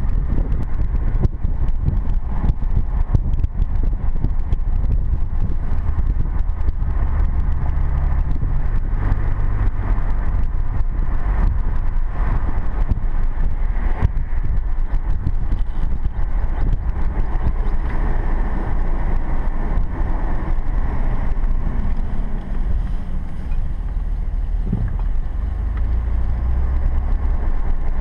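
Ford F-150 pickup driving on a paved road, heard from inside the cab: a steady low rumble of engine and tyres, with frequent small knocks and rattles.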